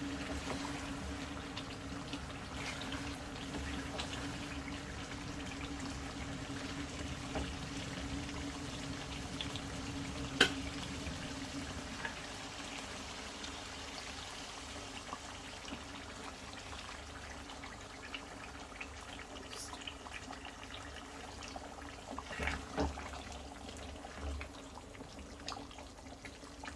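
A pan of chicken curry with added water cooking on the stove, with a steady low hum that stops about twelve seconds in. A single sharp click comes about ten seconds in, and a few light knocks near the end.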